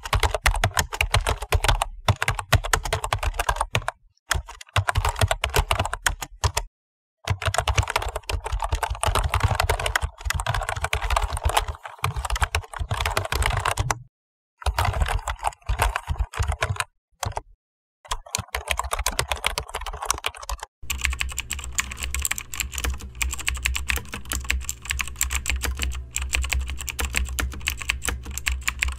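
Fast typing on a computer keyboard: a dense, rapid run of key clicks, broken several times by brief gaps of dead silence where takes are spliced together. About three-quarters of the way through, a different take begins, with a steady low hum under the clicks.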